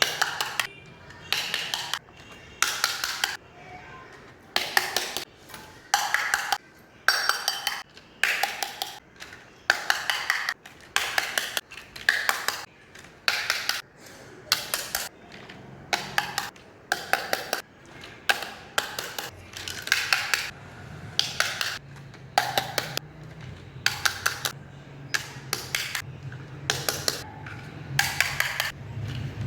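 Miniature toy kitchenware being handled, the small pieces clinking and tapping against each other in quick clusters of short clicks, with brief gaps between.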